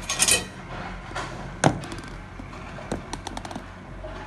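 Food containers being handled on a table: a brief clatter of steel clinks at the start, a single sharp knock about a second and a half in, then a quick run of light clicks as a hand works at a clear plastic snap-on lid on a plastic bowl.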